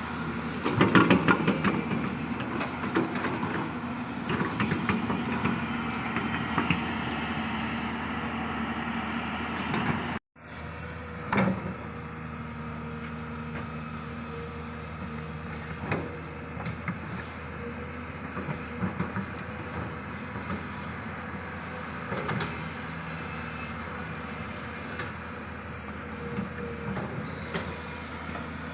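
Crawler excavator's diesel engine running steadily under working load, with scattered knocks and clanks of the bucket in soil and rock. The sound cuts out for an instant about ten seconds in, then carries on a little quieter.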